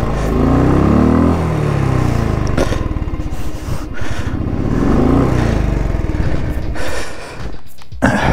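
Motorcycle engine revving up and easing off twice, its pitch rising and falling, with a few knocks and scrapes in between. The engine drops to a lower run near the end.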